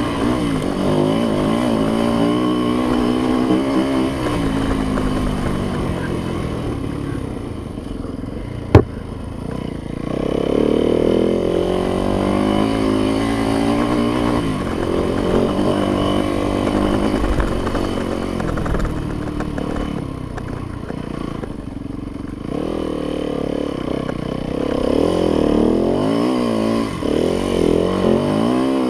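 Yamaha YZ dirt bike engine being ridden, its pitch rising and falling again and again as the throttle is opened and closed, easing off twice. A single sharp knock about nine seconds in is the loudest moment.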